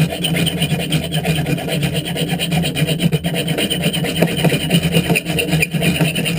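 Diamond-coated file of a Leatherman Charge TTI multi-tool rasping steadily back and forth across a steel bolt, which is nearly cut through.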